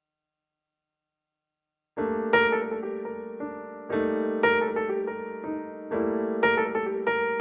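Background piano music, starting suddenly about two seconds in after silence, with phrases of struck notes repeating roughly every two seconds.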